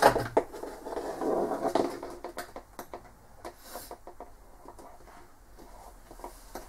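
Scattered light clicks and knocks with some rustling, busiest in the first two seconds, then thinning out to a few faint clicks over quiet room tone.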